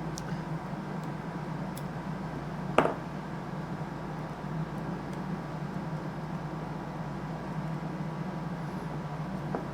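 Small clicks of tweezers working a coupler loose from a model locomotive, over a steady room hum; one sharper click about three seconds in.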